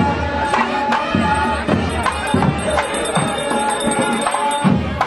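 Nadaswaram and thavil procession music: a reed pipe holds a melody over steady drum strokes. A high ringing sound joins about a second in and stops near the end.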